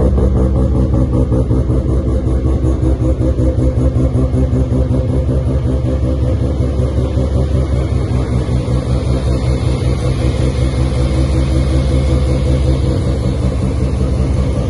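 Mazda RX-7's half-bridge-ported rotary engine idling with a steady, choppy "brap brap" lope, the uneven idle typical of a bridge-ported rotary.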